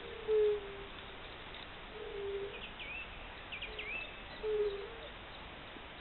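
Fire-bellied toads calling: short, soft, mellow hoots repeated every second or two, several toads overlapping at slightly different pitches, the loudest just after the start. A small bird gives a few brief high chirps in the middle.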